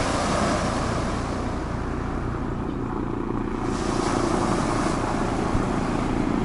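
Sea waves breaking and washing over a pebble beach: a hissing surge of surf that eases off a little over halfway through and builds again near the end, over a steady low rumble.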